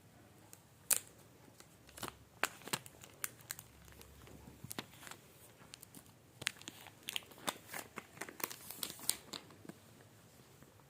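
iPhone 12 Pro Max box and packaging being unwrapped by hand: crinkling and tearing with a scatter of sharp crackles and clicks, busiest from about two to three and a half seconds in and again from about six and a half to nine and a half seconds.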